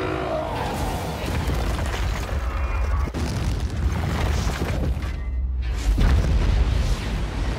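Film sound effects of a fiery cataclysm: continuous deep booming and rumbling explosions with music underneath, and a louder low blast about six seconds in.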